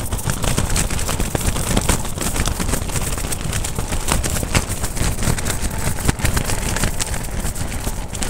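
Strong mountain wind gusting against the tent and buffeting the microphone: a steady low rumble with many quick snaps of flapping tent fabric.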